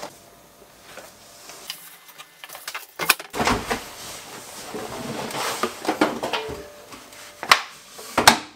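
Handling sounds at a front-loading washing machine: a towel rustling for a few seconds between knocks and clicks, the loudest a sharp click near the end.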